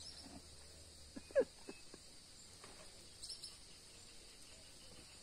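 Quiet pond-side ambience: a steady high insect drone, with one short, faint voice-like sound about a second and a half in and a brief high chirp a little after three seconds.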